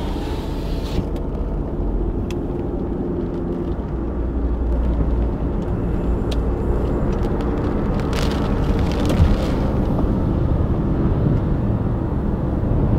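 Car engine and road noise while driving, a steady low rumble with a few light clicks and a brief rush of hissing noise about eight seconds in.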